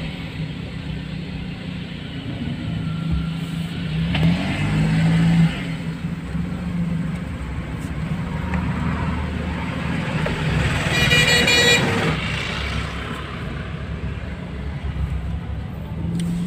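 A car's engine running and road noise as the car pulls away and drives off, heard from inside the car. A vehicle horn honks for about a second roughly eleven seconds in.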